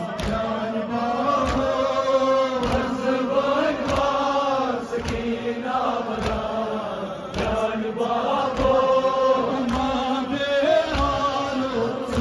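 A Kashmiri noha, a Muharram lament, chanted by a male reciter into a microphone and played through a loudspeaker. Sharp slaps of chest-beating (matam) keep time at about one every second and a quarter.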